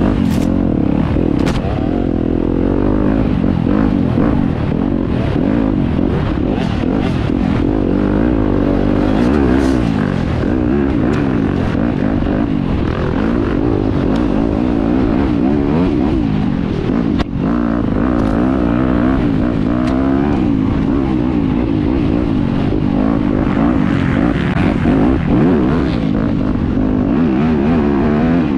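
Dirt bike engine running hard off-road, its pitch rising and falling continually as the throttle is worked.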